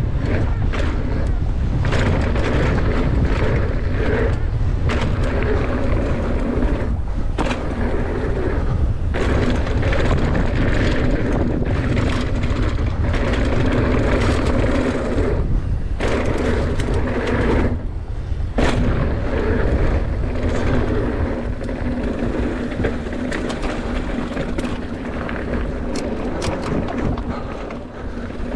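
Hardtail mountain bike rattling and knocking down a rooty trail over a steady low rumble, with the contaminated rear disc brake squeaking almost continuously. The squeak drops out for a moment a few times as the brake is let off.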